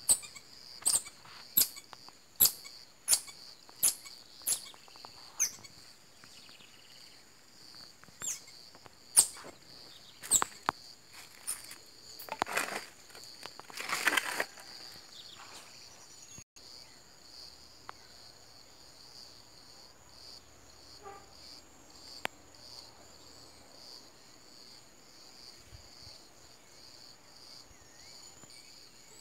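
A marmoset giving a series of short, sharp, high-pitched calls, about one every three quarters of a second for the first five seconds, then a few more scattered calls, over a steady high drone of insects. A short stretch of rustling noise comes near the middle, after which only the insects remain.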